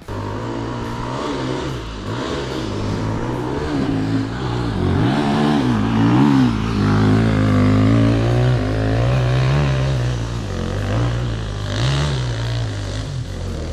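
Dirt bike engine revving up and down under constant throttle changes, its pitch rising and falling every second or so, as when working a motorcycle over rough ground.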